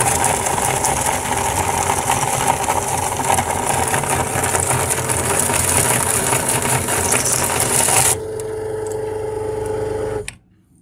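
Belt-driven meat grinder crushing dry papad pieces, a dense crunching and crackling over the hum of the machine. About eight seconds in the crunching stops and the grinder runs empty with a steady hum, then cuts off suddenly just after ten seconds.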